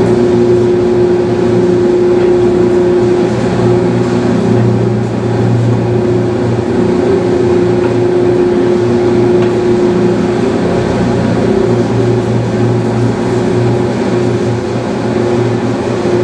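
Vintage Cooper-Bessemer natural-gas engine compressor running without firing, turned over by an electric motor to show its mechanical motion: a steady mechanical hum with a held droning tone.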